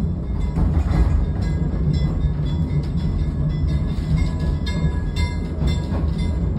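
Swedish railbus running along the track, heard from inside the driver's cab: a steady low diesel and running-gear rumble with a few scattered clicks.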